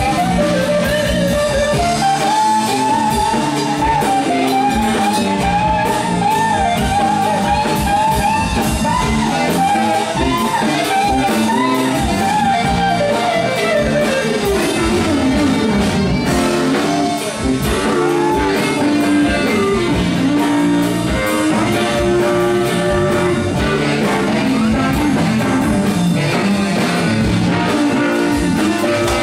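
Live funk-rock band playing, with an electric guitar taking a lead line over the band: bent, wavering notes, then a long downward slide about halfway through.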